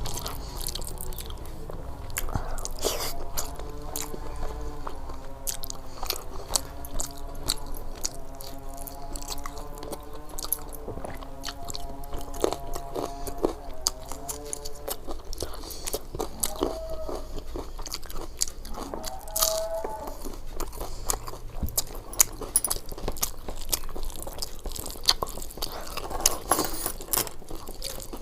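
Close-miked eating sounds: a person chewing and biting into a meal of khichdi with fried sides, with crisp crunching bites and wet chewing throughout. Soft background music with held notes plays under it for about the first half.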